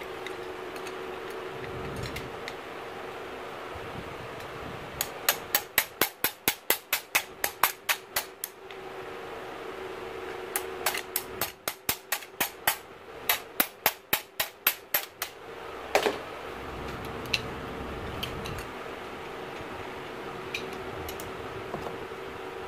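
Hammer tapping rapidly, about four sharp strikes a second, in two runs of a dozen or so, then one harder strike that rings, over a steady low hum.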